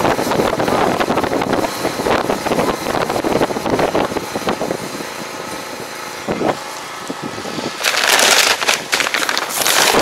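A tractor engine running as it pulls a row implement away across the field, mixed with wind buffeting the microphone. A louder rushing gust comes near the end.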